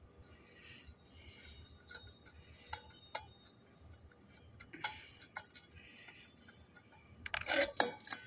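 Scattered light clicks from the fan cover at the back of a multistage pump's electric motor as it is worked loose by hand, then a louder clatter of knocks near the end as the cover comes off, exposing the cooling fan.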